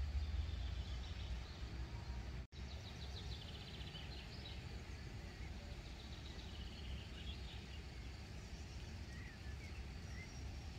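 Outdoor meadow ambience: a steady low rumble with faint birdsong, rapid high trills and a few short chirps. The sound drops out for a split second about two and a half seconds in.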